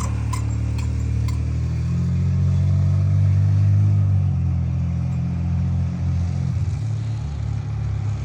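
Pontiac Grand Prix's engine running under light throttle as the car is driven up a rollback ramp, pulling harder about two seconds in and easing off near the end. A few light clicks in the first second.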